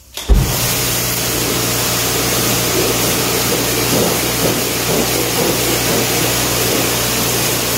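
Pressure washer blasting a jet of water onto a truck tire and steel rim to clean it. There is a loud, steady hiss that starts abruptly right at the beginning, over a steady low hum.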